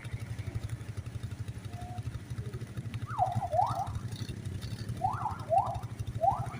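A vehicle engine idling with a steady low throb, under an electronic siren-type tone that sweeps quickly upward again and again: a couple of sweeps about three seconds in, then a run of about two sweeps a second near the end.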